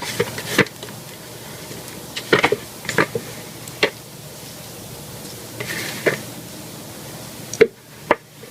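Spoons knocking and scraping against a plastic mixing bucket as thick cold-process soap batter is scraped out, in irregular sharp knocks with a short scrape about six seconds in.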